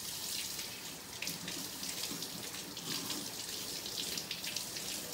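Kitchen sink tap running, its stream splashing over a knife being rinsed under it: a steady watery hiss with small irregular splashes.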